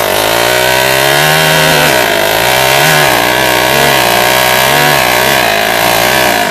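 Honda dirt bike engine held at high revs through a burnout, its pitch wavering up and down as the throttle is worked, while the spinning rear knobby tyre sprays dirt.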